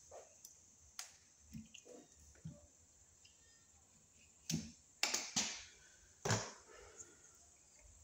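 Outer plastic jacket being stripped off 10/3 electrical cable by hand: scattered clicks and crackling scrapes of the sheathing, with the loudest cluster about four and a half to six and a half seconds in.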